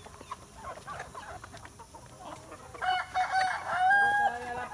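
A flock of chickens clucking while they feed. About three seconds in, a rooster crows loudly, and the call ends in a long held note.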